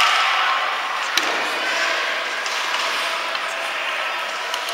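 Ice hockey game in a rink hall: a steady echoing hubbub of voices and play, with a sharp knock about a second in.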